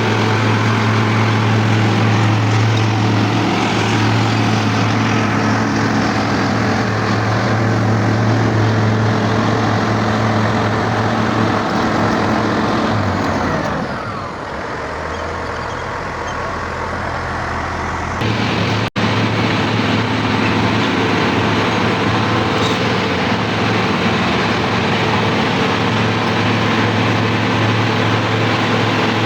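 Wirtgen W2000 cold milling machine's diesel engine running steadily under load, a heavy low hum. About halfway through it eases off for a few seconds with a falling whine, then comes back abruptly at full strength.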